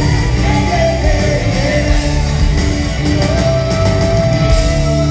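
Live rock band playing loudly, with electric bass and drums. A long high note is held from about three seconds in.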